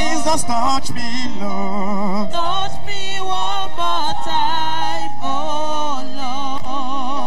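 Church worship music: a voice singing long, wavering held notes over sustained keyboard chords.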